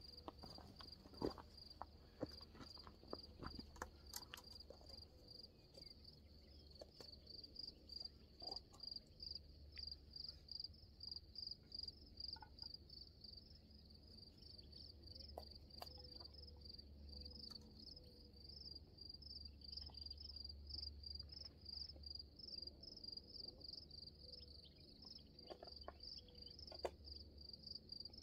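Crickets chirping steadily in a fast, even, high-pitched pulse, with a few faint clicks here and there.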